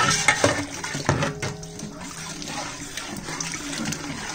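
Tamarind water pouring into a large aluminium pot of fried fenugreek leaves and tomato, a steady splashing fill. A few knocks of the metal ladle come in the first second.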